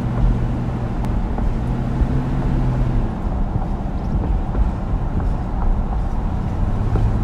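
Vehicle engine hum with steady road noise, heard from inside the moving vehicle; the engine note changes about three seconds in.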